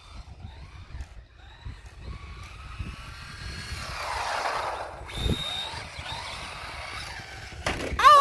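Electric motor of a radio-controlled car whining as it drives down the street, its pitch rising and falling with the throttle and loudest about four seconds in. A short exclamation near the end.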